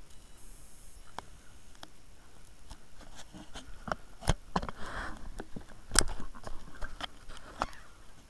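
Scattered sharp knocks and clicks of a pike and fishing gear being handled in a small inflatable boat, with a brief rush of noise about five seconds in.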